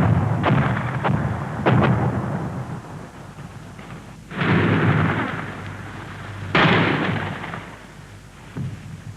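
A series of heavy booms: several sharp bangs close together, then two large rumbling blasts about two seconds apart, each dying away slowly.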